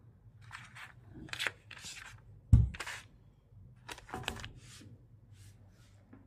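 Handling noises as crossbow parts are moved about by hand: a string of short scraping and rustling sounds, with one dull thump about two and a half seconds in, the loudest sound.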